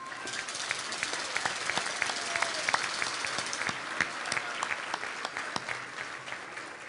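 Audience applauding in a large hall, a dense patter of many hands clapping that thins out near the end.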